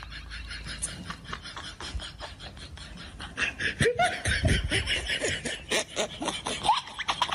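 A person laughing in short snickers, louder from about halfway through, over scattered clicks and rustling.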